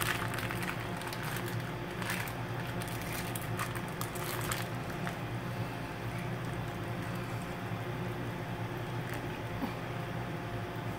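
A plastic bag crinkling as strips of raw steak are pulled out of it by hand: a quick run of crackles for about the first four or five seconds, then only a steady low hum.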